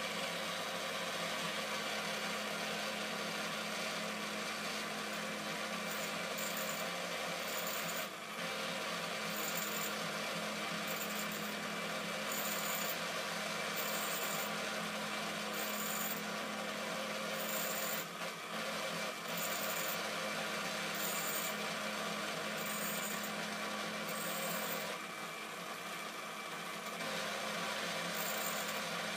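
Quorn tool and cutter grinder's motor running steadily while its grinding wheel relief-grinds the flutes of a tap, giving a steady grinding hiss. A short high hiss recurs about every second or so.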